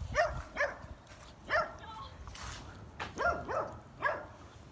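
A dog barking repeatedly: about seven short barks, each falling in pitch, in loose groups.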